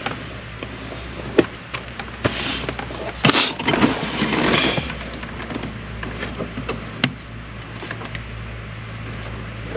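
Hands fitting and handling parts: scattered sharp clicks and knocks, with a denser stretch of scraping and rustling about two to five seconds in.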